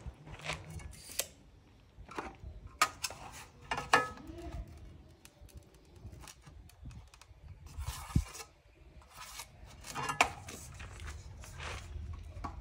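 Hard ceramic tiles and tools being handled during tile work: irregular sharp clinks and knocks with some scraping.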